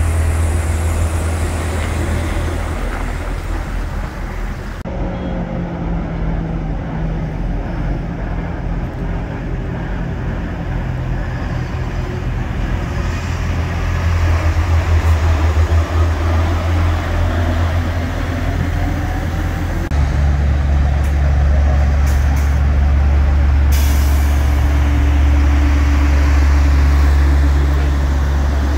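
Diesel engines of heavy articulated lorries, DAF and Scania tractor units hauling refrigerated trailers, running as they pull slowly past: a deep, steady rumble. The pitch of the rumble shifts abruptly a few times as one truck gives way to the next.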